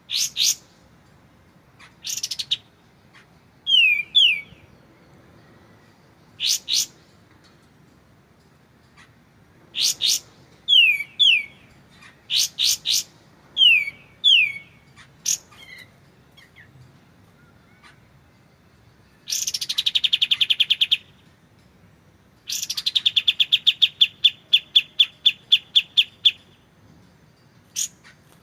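Kapas tembak calling: sharp high chirps and short downslurred whistles at irregular intervals, then a dense buzzy trill about two-thirds in, and after a brief pause a longer trill of rapid repeated notes.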